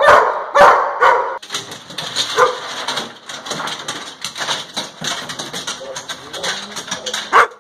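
A German Shepherd barking excitedly, two loud barks in the first second and a half. Then a busier stretch of short scuffs, clicks and knocks with some dog whining as the dogs move about in a pickup's bed, and one more loud bark near the end.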